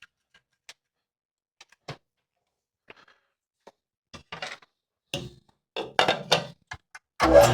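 Scattered light clicks and knocks of tool handling at a mill press, busier in the second half, then near the end the mill press motor switches on and runs steadily with a low hum, ready to cut down the ball's finger plugs with a plug cutter.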